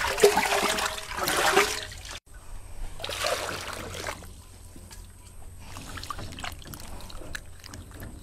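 Water poured and splashing loudly for about two seconds, then, after a break, softer sloshing with small clicks as sliced green bananas are rinsed by hand in a metal basin of water.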